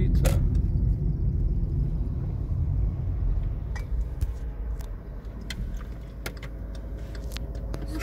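Car road noise heard from inside the cabin while driving: a low rumble that eases off after about four seconds, with scattered light clicks and rattles.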